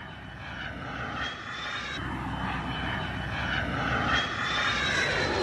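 F-35 fighter jet's engine running at high power as it flies a hard turn. The roar grows steadily louder as the jet comes closer, with a thin high whine that climbs slowly in pitch.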